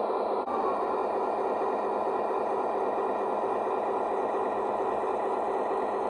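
Model diesel locomotive's onboard sound system playing a steady diesel engine rumble while the locomotive stands still, with a brief dip about half a second in.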